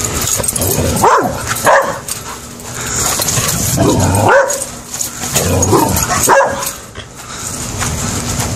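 A McNab dog barking in play, several short barks spread out, with clusters about a second in, around four seconds and around six seconds.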